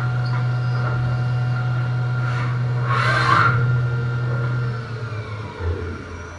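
Doosan CNC machining centre running between cuts, a steady low hum with two short hisses about two and a half and three seconds in, while the trunnion table tilts the aluminium plate. About five seconds in the hum winds down and drops away, followed by a low thump.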